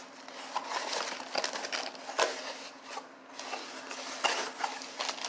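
Cardboard shipping box being opened by hand: flaps scraping and rustling, with irregular clicks and knocks, the sharpest about two seconds in and again just past four seconds. A faint steady hum runs underneath.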